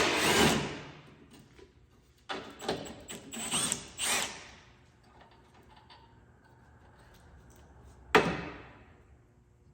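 Power tool running in short bursts, backing out the 14 mm bolts: one burst right at the start, a group of several around the middle, and one more near the end.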